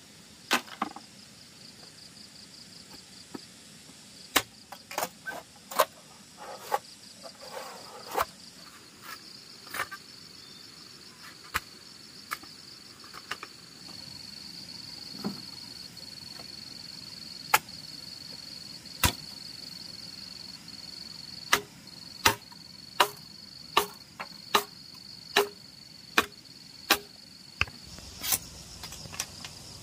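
Sharp knocks, scattered at first, then an even run of about eight strokes, roughly one every three-quarters of a second, near the end. Under them a steady high insect trill sets in about halfway through.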